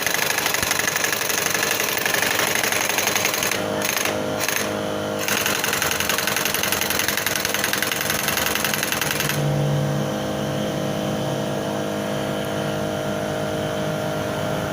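Impact wrench hammering continuously on a tight clutch castle nut to break it loose, a fast steady rattle that shifts in tone about four seconds in and again about nine seconds in.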